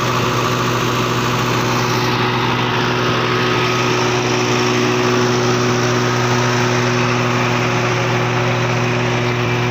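Septic-tank vacuum truck's engine and suction pump running steadily at a constant speed, a loud even hum that does not change. The suction hose is laid out to the tank.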